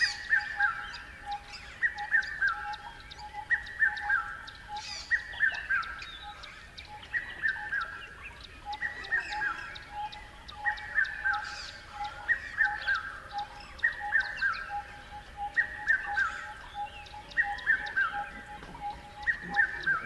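Several birds chirping and calling. A short falling phrase repeats about every two seconds over a steady run of lower notes and quick high chirps.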